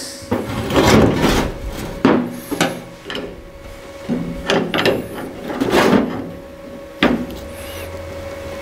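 A steel bar levering bent sheet steel straight: irregular scraping and creaking of metal on metal in several pushes, with a couple of sharp clicks.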